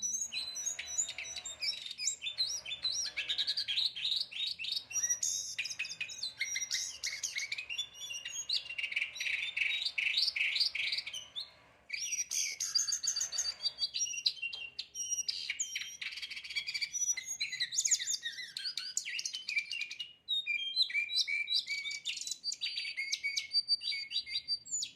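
A jongkangan songbird singing a long, fast run of chirps and sweeping whistled notes, with two brief breaks partway through.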